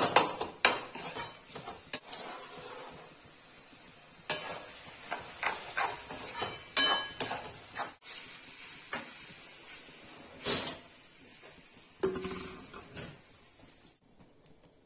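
Metal spoon clinking and scraping against an aluminium kadai while stirring frying onion-tomato masala, with quick knocks at first. Scattered utensil knocks follow against an aluminium pressure cooker.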